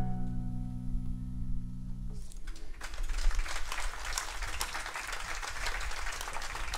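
A chamber orchestra of strings with piano and accordion holds its closing chord, which stops about two seconds in. Audience applause then starts and keeps going.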